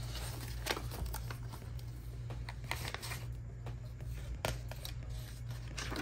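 Sheets of paper rustling and sliding as a printed packet is handled and a page is turned, in short irregular swishes over a steady low hum.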